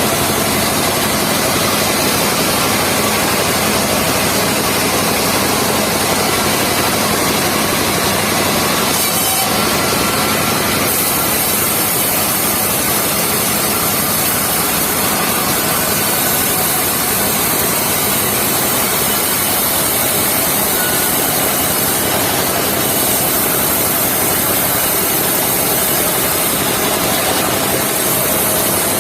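Engine of a mobile circular sawmill running steadily while its blade saws through a log, a loud, dense, even noise.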